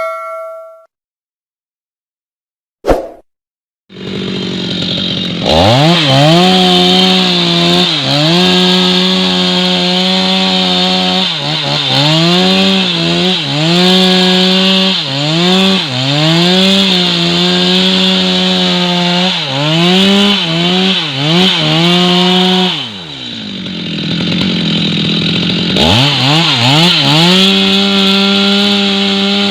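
Stihl MS 250 two-stroke chainsaw running at high speed while cutting wood, its pitch dropping and climbing back over and over as the chain is loaded in the cut. About four seconds in the saw comes in, and near the end it eases to a lower note for a couple of seconds before speeding up again.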